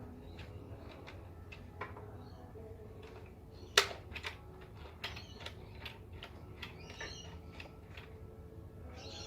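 Scattered light clicks and knocks of small hard objects being handled, with one sharper click about four seconds in; faint high chirping sounds come in near the end.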